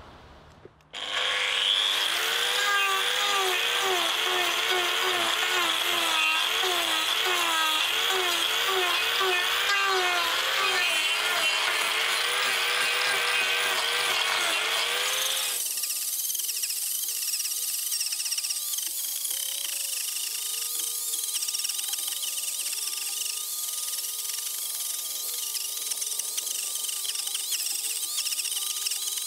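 Angle grinder with a wood-carving disc cutting into a log. The motor's whine rises and dips as the disc bites and eases off. About fifteen seconds in, the sound switches abruptly to a higher, steadier whine.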